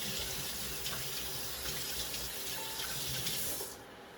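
Tap water running steadily into a sink, shut off suddenly near the end.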